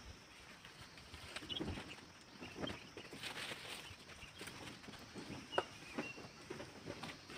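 Quiet, irregular crisp snips and rustles of a hand sickle cutting through rice stalks during the paddy harvest, with a brief thin high call, likely a bird, a little past the middle.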